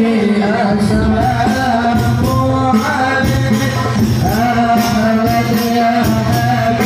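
Music played loud through a large PA speaker stack, with a held, wavering melody line over steady percussion.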